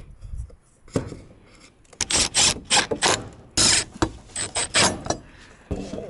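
Loud, sharp mechanical clicking in quick, uneven runs, starting about two seconds in and stopping about five seconds in.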